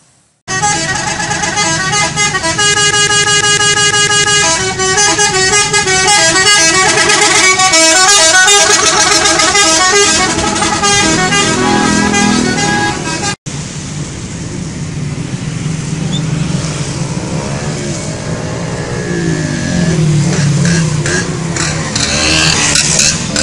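Bus telolet horn, a multi-trumpet musical air horn, playing a stepping tune of several held tones at once. About 13 seconds in it cuts off suddenly, and a noisier stretch of vehicle sound with sliding pitches follows.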